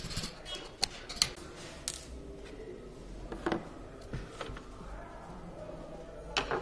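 Scattered sharp metal clicks and light knocks from steel screwdrivers and the brushless motor's fan and casing being handled on a wooden workbench, a few in the first two seconds, one about halfway and one near the end.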